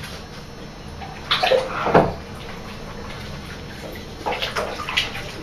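Bath water sloshing and splashing as people shift about in a filled bathtub, in short bursts about a second and a half in and again around four to five seconds.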